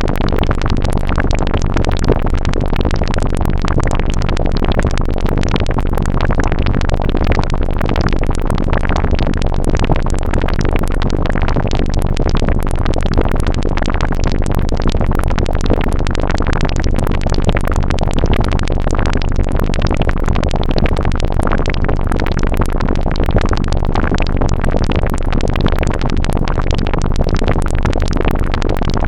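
Eurorack modular synthesizer patch built on Random Source Serge DUSG and SSG modules, making a synthesized water or liquid sound effect: a dense, steady stream of random blips and clicks over a constant low rumble.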